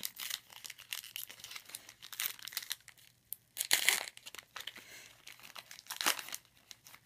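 The wrapper of a Score football card pack crinkling and being torn open by hand: a run of short crackles, with louder rips about four seconds in and again about six seconds in.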